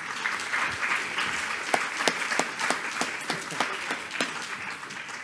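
Audience applauding, with a few louder single claps standing out from the steady clapping; it dies away near the end.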